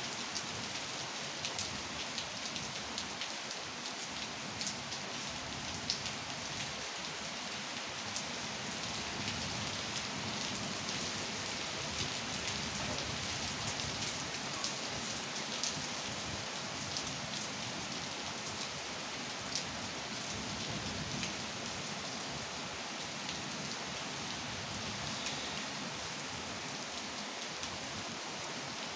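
Steady rain falling, an even hiss with scattered sharp ticks of single drops hitting close by.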